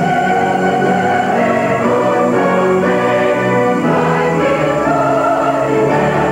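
Large mixed choir of men and women singing in full voice with instrumental accompaniment, holding long sustained chords.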